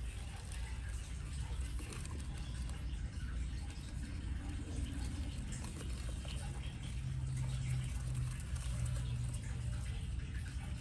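Baby Brazilian short-tailed opossums scurrying and scratching about in wood-shaving bedding, with faint light rustles and ticks over a low steady hum.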